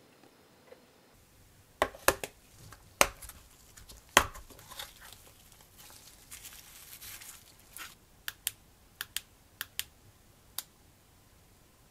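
Handling a small hard plastic case and the parts inside it: a few sharp plastic clicks and snaps, a stretch of soft rustling, then a quick run of small light clicks.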